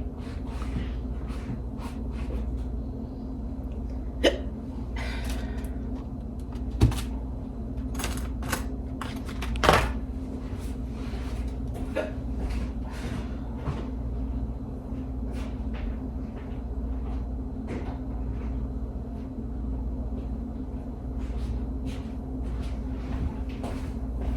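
A woman hiccuping: three sharp hiccups about three seconds apart in the first ten seconds. Small knocks and clicks of kitchen handling run throughout over a steady low hum.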